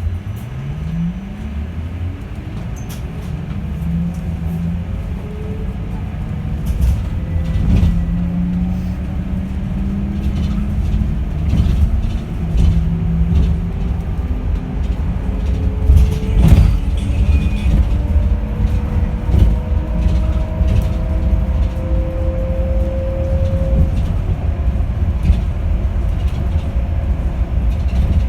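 Yutong E12 electric bus's permanent-magnet synchronous traction motor whining and slowly rising in pitch as the bus gathers speed, over a steady low road rumble with scattered knocks and rattles.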